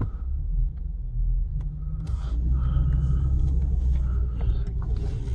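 A vehicle driving slowly: a steady low engine and road rumble.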